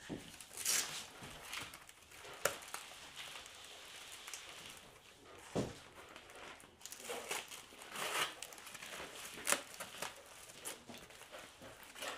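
Cardboard and plastic packing wrap being handled and pulled at, crinkling and rustling in irregular bursts, with a single dull thump about halfway through.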